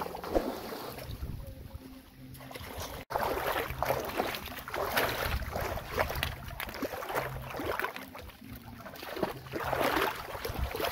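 Water splashing and sloshing as people wade through a shallow river, in irregular swishes, with a brief break about three seconds in.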